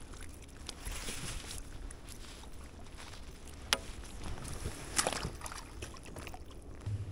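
Lake water lapping and sloshing at the shore, with two sharp clicks, one a little over three and a half seconds in and one about five seconds in.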